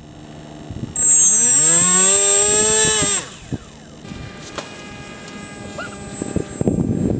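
Electric brushless motor and propeller of a small RC plane throttling up about a second in, the whine rising in pitch and then holding with a high steady tone above it, cut back abruptly about two seconds later to a fainter steady hum.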